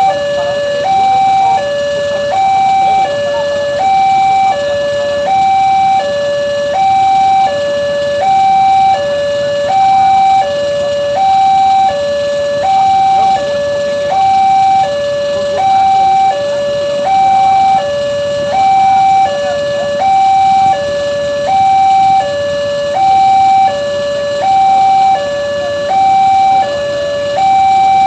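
Railroad level-crossing warning alarm sounding a steady two-tone electronic signal, a higher and a lower tone alternating about once a second each. It warns that a train is approaching the crossing.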